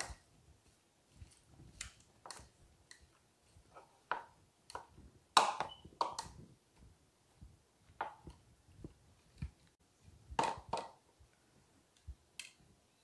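Stainless-steel wire potato masher mashing sugared sliced strawberries in a ceramic bowl: irregular clinks and knocks as the masher strikes the bowl's bottom, loudest about five seconds in and again about ten seconds in.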